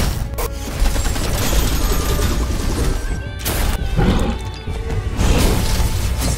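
Action soundtrack of a 3D animated short: dramatic music layered with sound effects, with several heavy impacts and crashes through it.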